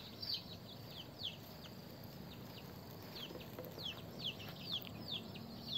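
Chicks peeping: short, high-pitched notes that slide downward, repeated irregularly with a brief lull in the middle.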